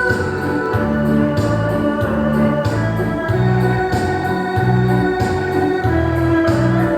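Electronic keyboard dance music with a steady bass beat and sustained organ-like chords.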